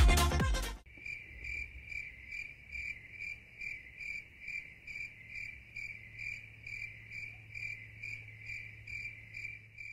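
Electronic dance music cuts off under a second in, and a cricket chirps on in an even rhythm, about two and a half chirps a second, over a faint low hum.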